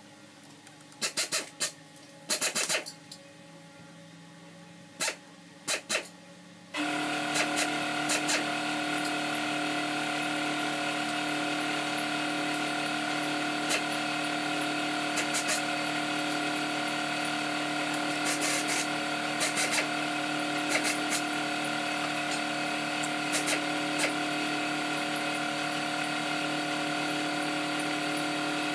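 A few light clicks and taps of hand work on metal parts and wiring. About seven seconds in, a steady machine hum with several fixed pitches comes on suddenly and holds level, with occasional clicks over it.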